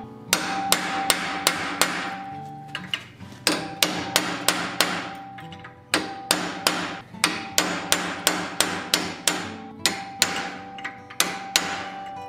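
Hand hammer striking a punch driven into hot mild steel held in a blacksmith's vise, sinking the eye sockets of a forged skull. The blows come about three a second in runs with short pauses, and a steady ringing tone carries between them.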